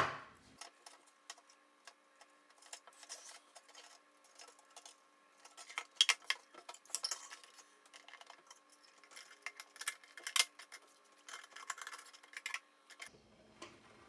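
Small 6-volt DC gear motor running with a faint steady hum, under irregular clicks and clacks of 3D-printed plastic parts, a drive gear and a turntable platter, being handled and fitted onto the case.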